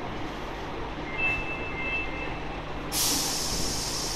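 Osaka Metro Nagahori Tsurumi-ryokuchi Line subway train standing at an underground platform with a steady hum. A short high electronic tone sounds about a second in, and about three seconds in a loud hiss of air breaks out from the train.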